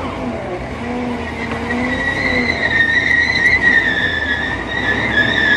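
A vehicle with a sustained high squeal that sets in about two seconds in and holds steady, over ongoing vehicle noise.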